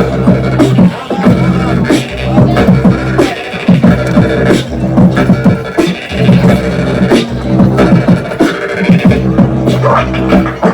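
Live beatboxing: rapid mouth-made percussion over a steady low bass drone that drops out briefly a few times.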